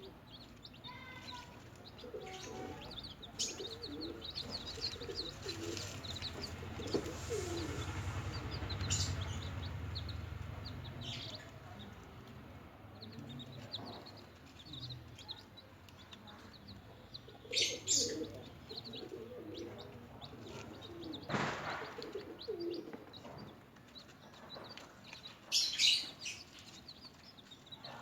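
Newly hatched chicks peeping: many short, high chirps in quick succession, with a low rumble about a third of the way in and a few sharp knocks or rustles in the second half.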